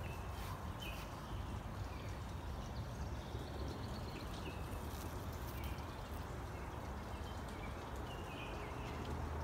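Outdoor ambience: a steady low rumble with faint, short bird chirps repeating every second or so.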